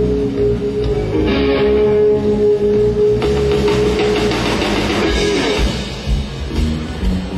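Live band playing a blues number without vocals: an electric guitar lead holds one long sustained note for about four seconds, then moves into a busier run, over bass and drums.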